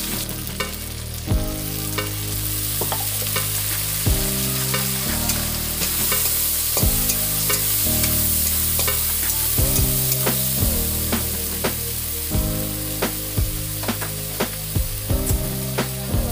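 Ground spice paste with ginger and garlic frying with onions in hot oil, sizzling steadily while a spatula stirs it, scraping and clicking against the pan.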